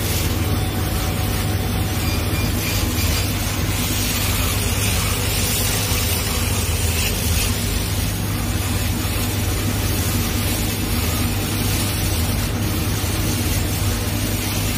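Laser cutting machine running: a steady low hum under an even hiss.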